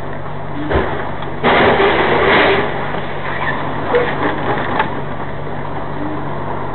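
Lorry cab interior with the engine running in a steady hum. A knock comes about a second in, then a loud, harsh noise lasting just over a second, then a few sharp clicks.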